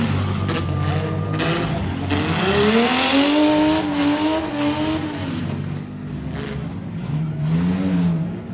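Engines of several demolition-derby SUVs, minivans and trucks revving hard and unevenly as they push and ram one another. Their overlapping pitches rise and fall over a constant noisy rush.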